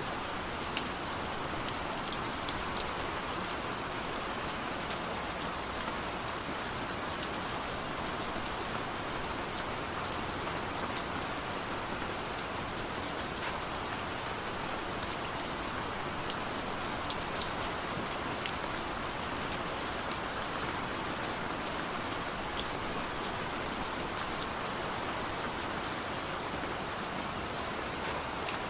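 Steady rain falling: an even hiss of rain with single drops ticking sharply here and there.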